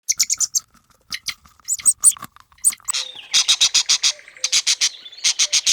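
Small birds chirping: many short, high chirps, some in fast runs of several a second.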